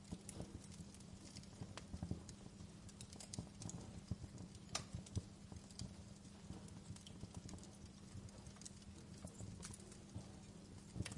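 Wood fire crackling in a fireplace: irregular sharp pops and snaps over a steady low rumble of the burning logs, with one louder snap a little before the middle.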